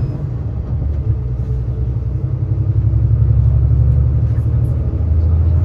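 Steady low drone of a bus's engine and tyres heard from inside the moving bus.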